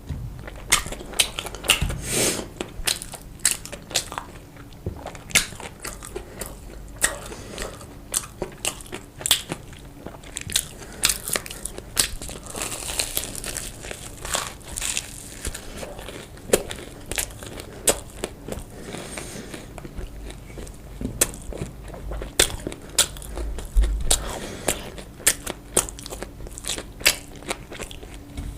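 Close-miked eating: crunchy bites and chewing, a dense run of sharp crackly clicks several times a second.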